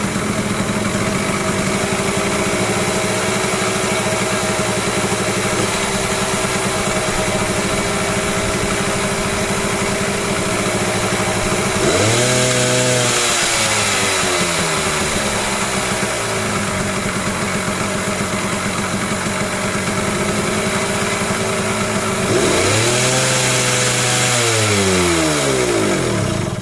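Suzuki TRS two-stroke motorcycle engine idling, revved up twice, about halfway through and again near the end, each time dropping back, then cutting out suddenly at the very end. The owner puts the trouble down to his wiring.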